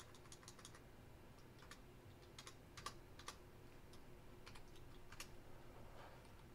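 Faint, irregular keystrokes on a computer keyboard.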